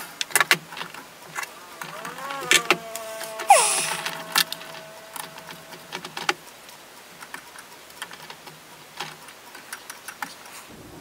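Scattered small clicks and taps of pliers and a hex key against the black 3D-printed plastic clock frame while the hairspring and balance wheel are adjusted. About two seconds in a wavering tone appears, glides down and holds steady for a couple of seconds before stopping.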